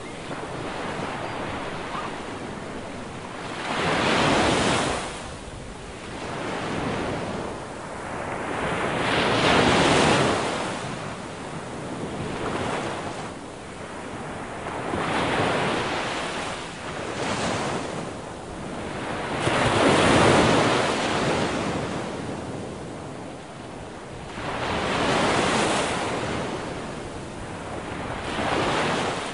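Ocean waves breaking and washing on the shore, a loud surge about every five seconds with quieter wash between.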